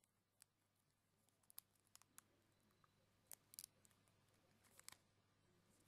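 Faint, scattered sharp clicks of a plastic action figure and its packaging being handled, about a dozen small ticks spread irregularly over a near-silent background.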